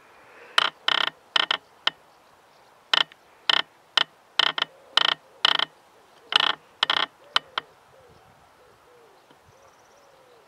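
Roe deer call (wabik) blown in a string of about seventeen short, high, squeaky piping notes in irregular groups, some in quick pairs, imitating a roe doe's piping to draw a roe buck in the rut.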